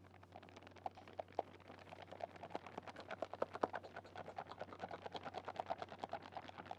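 Thin plastic bag of icing sugar crinkling in quick, irregular crackles as it is tipped and shaken to pour the sugar into a plastic tub, growing busier after about a second. A steady low hum lies underneath.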